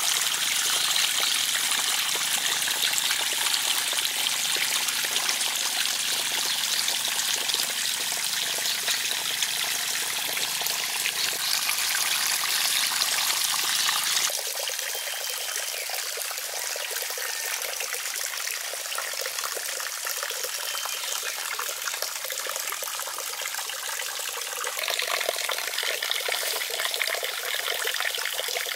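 Water trickling and pouring steadily from a fountain spout into a small pond. The sound changes suddenly about halfway through, losing its lower part, and shifts again near the end.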